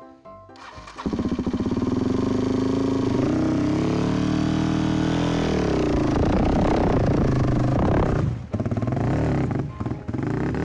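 Suzuki DR-Z250 single-cylinder four-stroke dirt bike climbing the trail under throttle close by, starting about a second in. Its revs rise and fall, and the throttle is chopped a couple of times near the end as it rides off.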